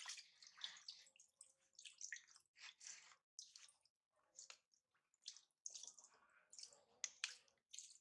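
Faint, irregular splashing and dripping of water in a plastic basin as a baby monkey moves about in it.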